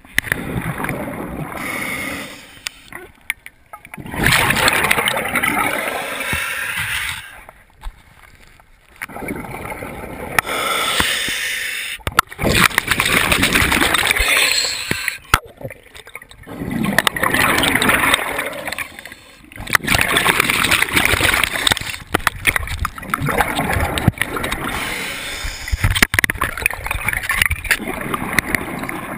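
Scuba diver's regulator underwater: loud bursts of exhaled bubbles every few seconds, each lasting two to three seconds, with quieter gaps for the inhalations between.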